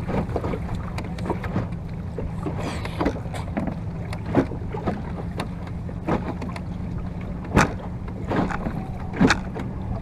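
Water slapping irregularly against the wooden bow of a Venetian rowing boat under way in choppy water, sharp knocks about every second or so over a steady low rumble.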